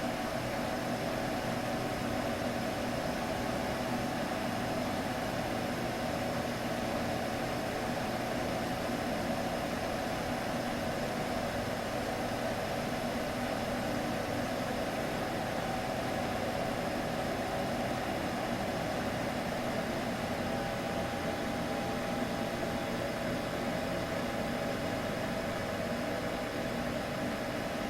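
Steady droning hum over a constant hiss, unbroken and unchanging: a soothing sleep sound for a baby.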